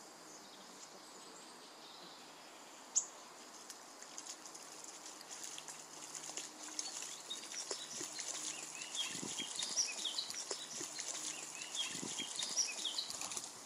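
Small songbirds chirping and twittering over a steady outdoor background hiss, the calls growing busier from the middle on. A single sharp click about three seconds in, and a couple of soft low thuds near the end.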